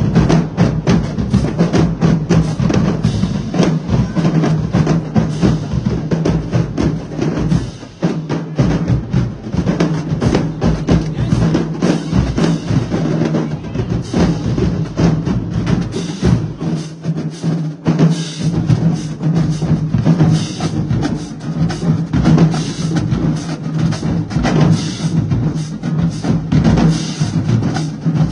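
Marching drumline playing a fast cadence: snare drums, bass drums and crash cymbals together, with a brief break about eight seconds in.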